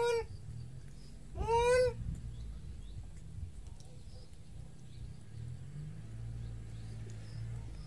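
Young macaque giving two short, high whining calls about a second and a half apart, each rising then falling in pitch. A faint low hum follows.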